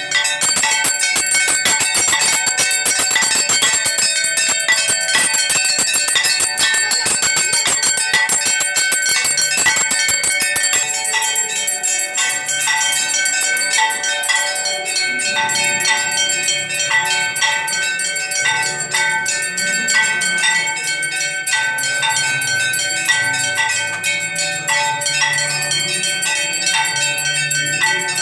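Temple bells ringing for the aarti: a dense, rapid clangour of strikes for the first ten seconds or so, then a slower, steadier ringing with evenly spaced strikes.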